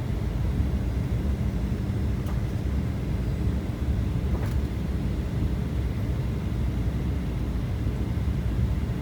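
Steady low rumble of an airliner cabin in flight: engine and airflow noise heard from inside, with a couple of faint clicks partway through.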